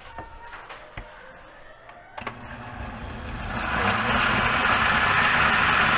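A few light clicks, then a countertop blender switched on about two seconds in. Its motor comes up to speed over a second or so and runs steadily, puréeing a watery salsa of guajillo chiles and tomatoes.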